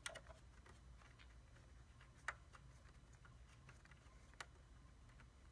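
Three faint, sharp metallic clicks about two seconds apart: a 14 mm wrench working the fuel-line fitting on the BMW N54's high-pressure fuel rail as it is loosened, over a faint steady low hum.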